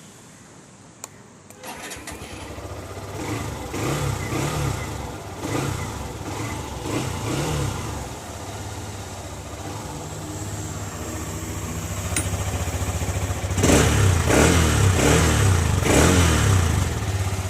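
Hero Xtreme 125R motorcycle's single-cylinder engine starting about two seconds in, then idling with throttle blips through its stock exhaust. A few short revs come first, then a steady idle, then a louder run of about four quick revs near the end.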